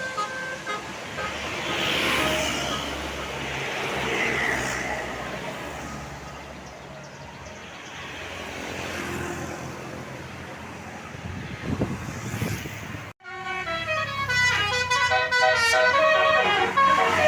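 Road traffic noise with a vehicle passing, then, after a sudden break about 13 seconds in, a tour bus's multi-tone basuri "telolet" horn playing a quick tune of stepping notes.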